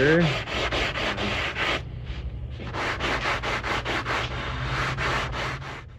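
Sandpaper on a straight shooting board being rubbed in quick back-and-forth strokes along the edge of a walnut veneer, truing the edge flat and straight for a seam. The strokes pause briefly about two seconds in, then resume and stop just before the end.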